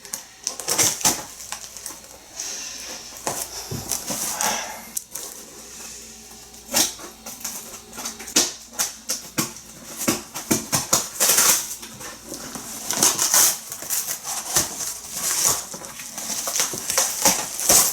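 Packing material being pulled and handled, rustling and crinkling, with many sharp clicks and a few knocks.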